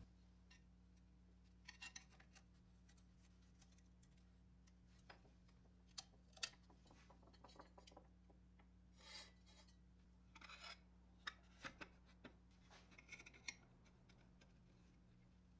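Scattered light clicks, taps and short scrapes of a rusty pressed-steel toy airplane and its loose parts being handled and taken apart on a wooden workbench, over a faint steady hum.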